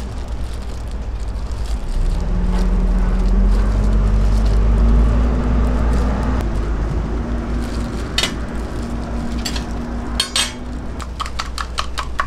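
A motor vehicle's engine rumbling close by, louder from about two seconds in, its note rising slowly and then holding steady. In the last few seconds comes a run of sharp clinks of metal cooking utensils.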